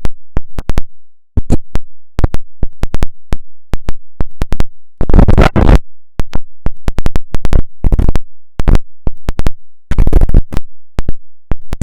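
Hurricane wind gusts buffeting the microphone, overloading it into loud crackling and popping, with the heaviest gusts about five seconds in and again around ten seconds.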